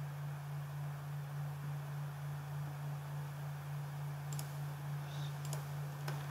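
A steady low electrical hum over a background hiss, with a few sharp mouse clicks near the end.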